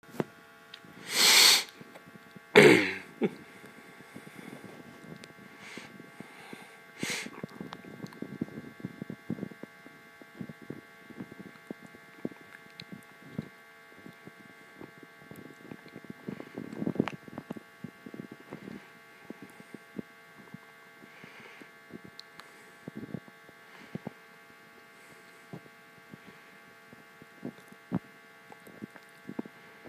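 Two short, loud bursts of hiss about a second apart near the start, then a faint steady electrical hum with scattered small clicks and taps.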